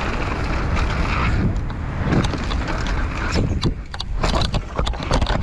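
Mountain bike ridden fast down a trail, heard on a camera microphone: wind rushing over the mic and a steady rumble of tyres on dirt, with a run of sharp rattling knocks from the bike over bumps in the second half.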